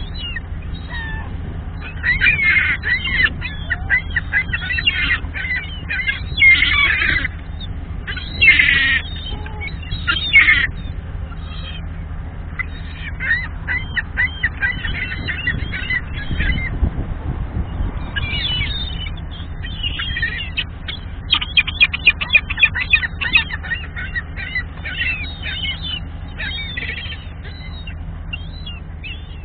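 A flock of gulls squawking and calling in short harsh bursts, with a fast run of about a dozen loud, evenly spaced calls about two-thirds of the way through. A steady low hum runs underneath.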